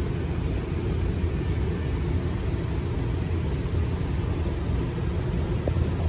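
Steady low rumble inside a light-rail train car standing at a station platform, before it pulls away.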